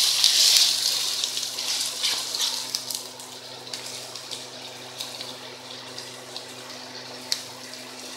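Onions and ginger-garlic paste sizzling in hot oil in a steel karahi as a wooden spoon stirs them. The hiss is loudest at the start and dies down over the next few seconds, with a few light scrapes and clicks.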